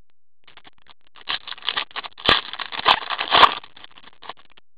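O-Pee-Chee Platinum hockey cards being slid and flicked through in gloved hands: a run of quick scrapes and clicks, with a few sharper snaps between about two and three and a half seconds in.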